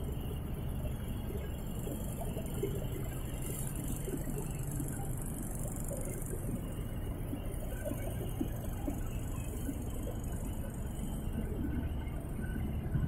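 Steady low mechanical hum with a hiss over it, the running noise of workshop machinery, with a few faint light ticks scattered through it.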